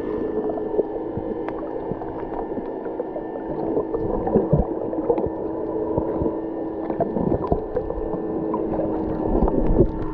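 Muffled underwater ambience over a coral reef: a steady low hum with scattered clicks and crackles throughout.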